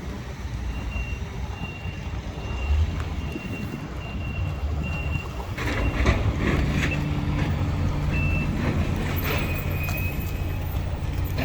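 A heavy vehicle's reversing alarm beeps repeatedly through the first half. From about the middle a diesel engine runs steadily, with a few knocks, over wind rumble on the microphone.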